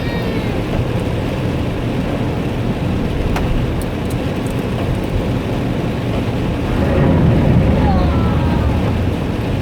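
Heavy rain pouring down as a steady, low rushing noise, with a few sharp ticks about three to four and a half seconds in, such as hailstones striking.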